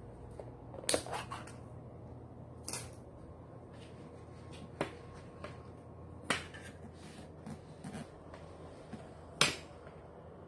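Handling noise: a handful of sharp, irregular clicks and taps, the loudest near the end, over a faint low hum.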